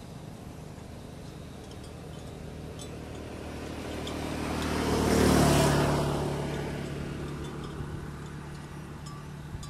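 A motor vehicle passing by, its sound building to a peak about five seconds in and then fading away, over a steady low engine hum.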